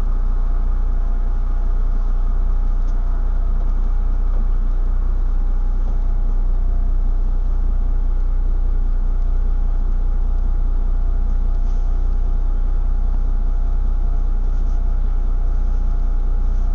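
DAF DB250LF double-decker bus running, heard from inside the lower deck: a steady, unbroken engine drone and low rumble with a few steady tones over it.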